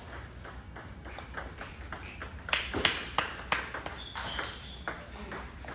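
Table tennis ball clicking off paddles and the table during a rally. The hits come faintly at first, then there is a quick run of much louder cracks about two and a half to three and a half seconds in, followed by a few scattered clicks.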